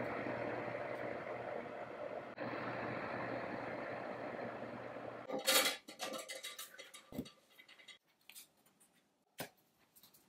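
Oven running with a steady fan hum while it bakes. About halfway through the hum stops. Then comes a short clatter and a few light knocks of a ceramic dish being set down.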